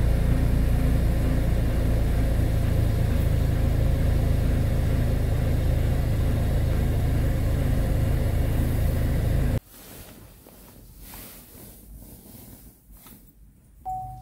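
Chevrolet Malibu 1.35-litre turbo three-cylinder engine running just after a cold morning start, heard from inside the cabin. It gives a heavy low rumble, the 'tank noise' the owner complains of, which the service centre could not pin down. The rumble cuts off suddenly about ten seconds in, and a short beep sounds near the end.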